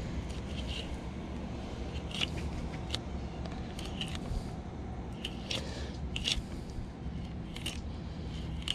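Fillet knife slicing along a mahi-mahi's backbone toward the rib cage, a series of short crisp crunching strokes as the blade cuts through skin and flesh, over a steady low rumble.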